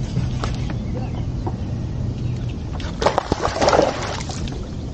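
A hooked largemouth bass thrashing and splashing at the water's surface beside the boat, a burst of splashes about three seconds in.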